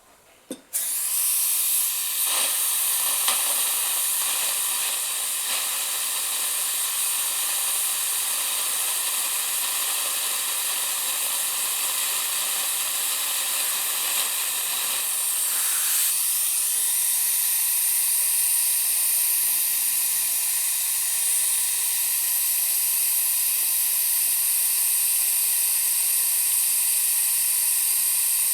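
Dental high-speed air-turbine handpiece running, a steady high-pitched whine and hiss, cutting out decay in a model tooth. It starts about a second in, after a few light clicks.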